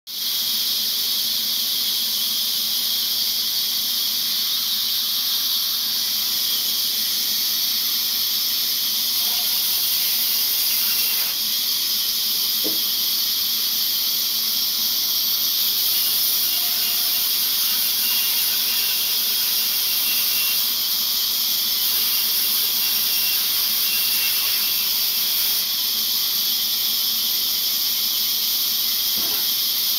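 Large vertical band saw cutting through a log: a steady, high-pitched hiss from the blade running through the wood.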